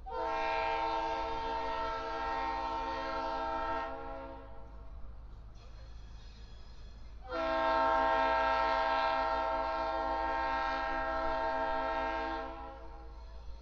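Locomotive air horn on an EMD GP38-2 sounding two long blasts, each a chord of several steady notes. The first lasts about four seconds, and the second starts about seven seconds in and lasts about five.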